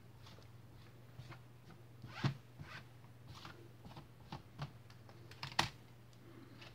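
Laptop keyboard with a metal backing plate being handled by gloved hands and laid face down on the laptop's palmrest: scattered light clicks and scrapes, with two sharper knocks, one about two seconds in and one about five and a half seconds in.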